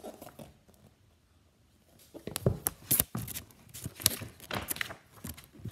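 Paper pages of a picture book being handled and turned close to the microphone: after a short quiet, a run of sharp paper crackles and rustles starts about two seconds in.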